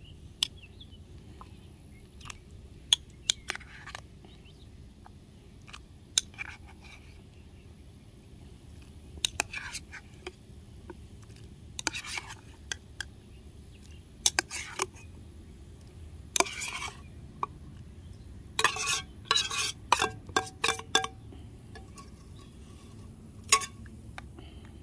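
A metal spoon scraping and clinking against a tin can and a small metal camp pot, scooping canned chicken out of the can and stirring it into the pot, in irregular short bursts with a few sharp clinks.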